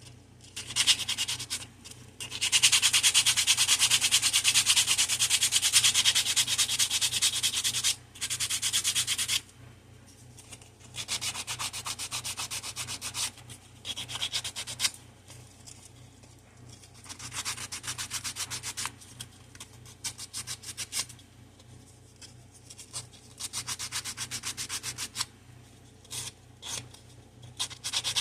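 Sandpaper rubbing across the bottom of a tic-tac-toe board in stop-start stretches of one to five seconds, the longest and loudest running from about two to eight seconds in.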